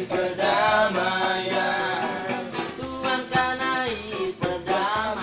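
Ska band music near the end of a song: full band with plucked guitar under a bending sung melody line.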